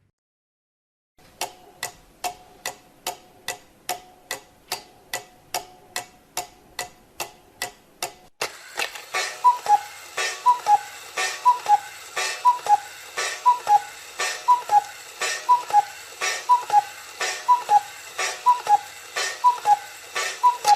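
Mechanical clock ticking at a steady two or three ticks a second, starting about a second in. About eight seconds in it switches to a louder tick-tock with a ringing, alternating pitch on the beats.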